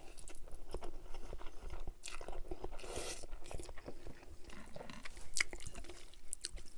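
Chewing a mouthful of spaghetti and meatballs, with wet mouth clicks and smacks, and a few sharp clicks of a metal fork against the glass baking dish near the end.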